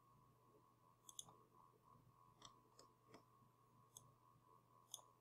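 Near silence with a few faint, scattered computer mouse clicks over a faint steady hum.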